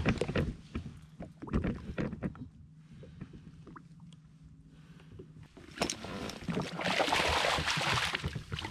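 A few light knocks and bumps on the boat, then about six seconds in a loud rushing splash of water as a hooked snapper thrashes at the surface beside the landing net.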